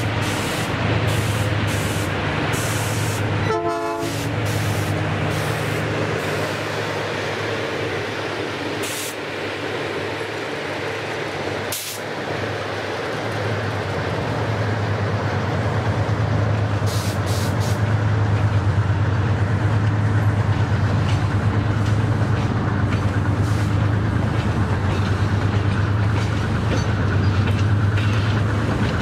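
Metre-gauge freight train of loaded cellulose wagons rolling past, with a steady low rumble of steel wheels on rail that grows louder in the second half. Scattered clicks and clanks come from wheels crossing rail joints, with a short run of squeaky metallic tones about four seconds in and a single sharp knock about twelve seconds in.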